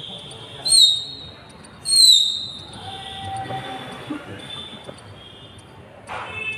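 Shrill whistles falling in pitch: a short one about a second in and a louder, longer one at about two seconds.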